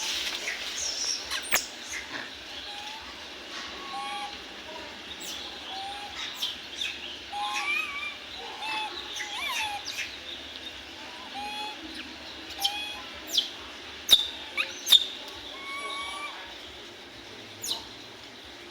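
A baby monkey gives many short, high squeaky calls, some rising and some falling in pitch. A few sharp clicks or taps stand out louder, mostly in the second half.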